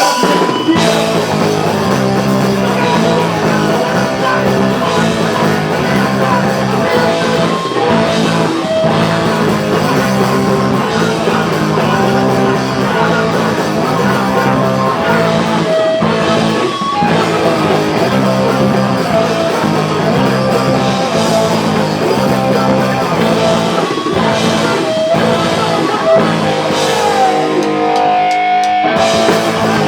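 Live punk band playing a song: distorted electric guitars, bass and drums, loud and steady, with a riff repeating throughout.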